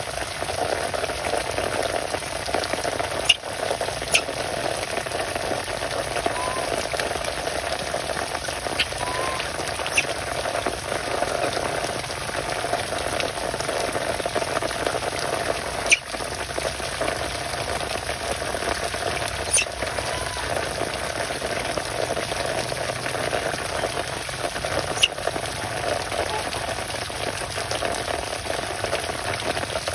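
Heavy rain pouring steadily onto leaves, wood and wet ground, a constant hiss with a few sharp taps of drops landing close by.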